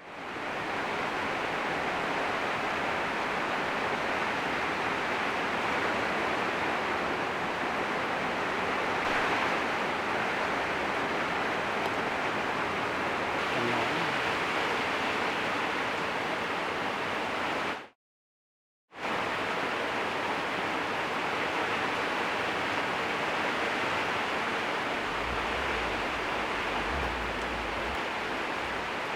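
Steady rushing hiss with no distinct strikes or tones, which cuts out completely for about a second partway through.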